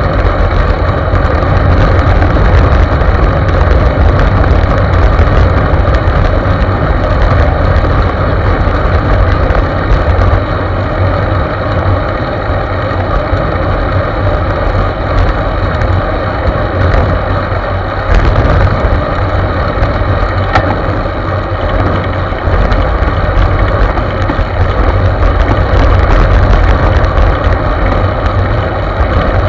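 Wind rushing over the microphone of a bike-mounted camera while riding at speed: a loud, steady low rumble.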